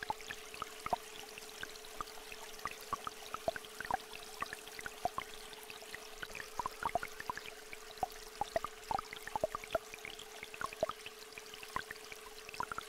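A steady pure tone held under a small stream flowing, with water drops falling irregularly, several a second.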